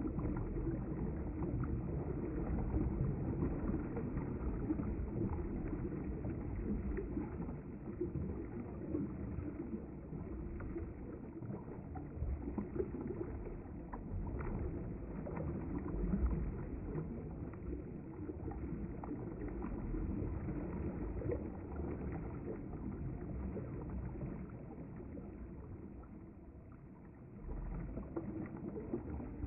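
River water running past the bank as a steady, low rushing noise, easing briefly near the end.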